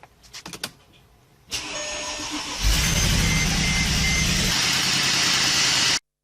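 Mercedes car engine being started: a few faint clicks, then engine noise that builds about a second and a half in and settles into a steady run, cut off suddenly near the end.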